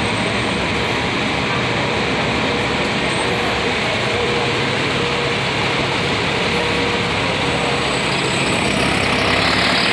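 Nova Bus LFS HEV hybrid city bus running steadily as it pulls away from the stop, a continuous drone that grows a little louder and brighter near the end.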